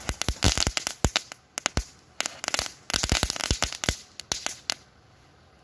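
Category 1 crackling firecracker (crackling cracker) going off: a rapid, irregular string of sharp crackles and pops for about four and a half seconds, then stopping.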